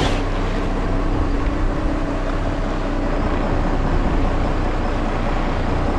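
A sportfishing boat's engine running steadily while the boat is underway: a steady hum under a rushing noise.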